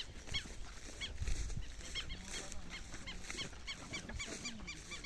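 An animal's short, high calls repeated about two or three times a second.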